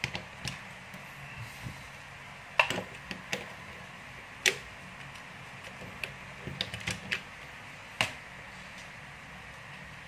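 Scattered small clicks and light knocks, a few seconds apart, from hands handling parts and tools on a workbench, over a faint steady hiss.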